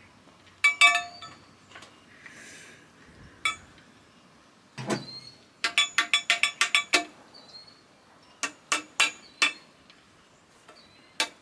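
Sharp metallic clinks and taps from steel parts, bolts and tools handled while a broadcast spreader is being assembled. A few scattered clinks come first, then a quick run of about eight taps midway, and a handful more shortly after.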